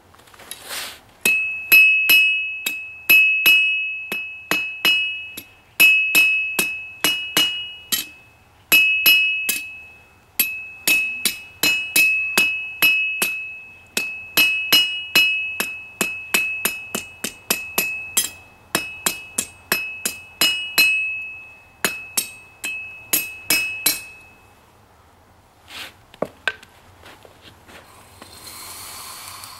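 Hammer blows on a steel anvil, drawing a point on the end of a hot rebar bar. The strikes come in steady runs of about two to three a second, each with a high ringing from the anvil, with short pauses between runs, and stop about six seconds before the end. A short hiss follows near the end.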